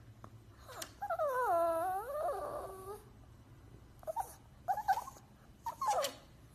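Yorkshire terrier puppy whining: one long whine about a second in that dips and then rises in pitch, followed by three short whimpers near the end.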